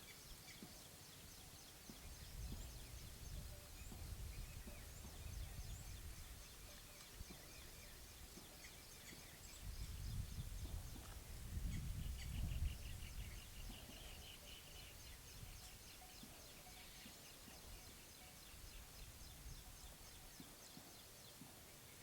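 Outdoor mountain ambience: small birds chirping here and there, with a quick run of repeated chirps a little past the middle, over a steady hiss. Two stretches of low rumble come and go, the louder one around the middle.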